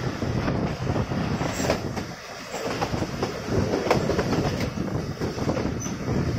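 Train running through the station, a fluctuating rumble of wheels on rails broken by irregular clicks and knocks, with a brief lull about two seconds in.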